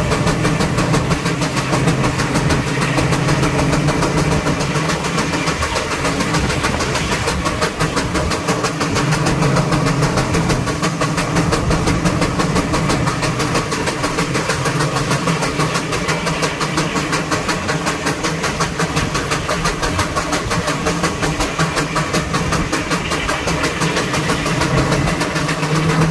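George White steam engine running belted to a sawmill, its exhaust chuffing in a quick, even beat, with a steady low hum underneath.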